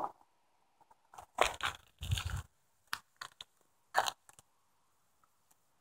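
Footsteps in sneakers crunching and scuffing on gritty asphalt: a few short, irregular steps with near silence between them, one of them a duller thud about two seconds in.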